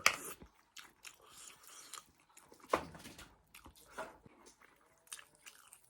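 A person chewing and biting food close to the microphone, with sharp crunching clicks at the start, near the middle and about four seconds in.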